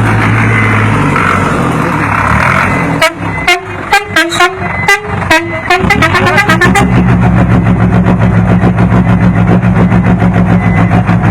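Aragaz M-2000 Italian-style musical air horn on a Magirus truck playing a melody as a quick run of short notes, starting about three seconds in and lasting about three seconds, over the truck's diesel engine running. After the melody the engine runs on alone with a steady low pulsing hum.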